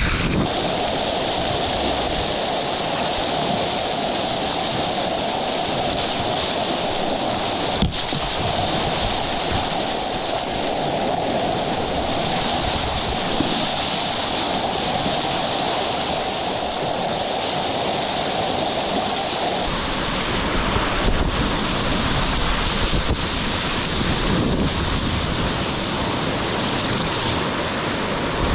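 Whitewater of a Colorado River rapid rushing steadily around a kayak, heard close up with some wind on the microphone. The sound changes abruptly about two-thirds of the way through.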